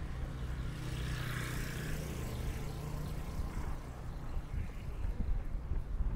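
Street traffic: a motor vehicle's engine running close by, with a swell of hiss about a second in as it passes.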